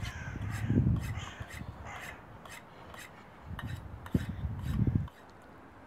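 Knife blade drawn by hand against a sharpening stone in a series of short rasping strokes, about two a second, with two spells of low rumble.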